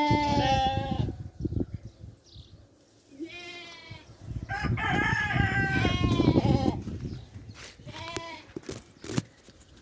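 Sheep bleating, about four calls: one at the start, a short one around three and a half seconds in, a long wavering one in the middle and a short one near the end, with low knocking and rustling noise in between.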